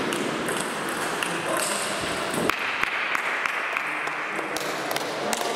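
Table tennis rally: the ball clicks sharply and irregularly as it is struck back and forth off the rubber bats and bounces on the table.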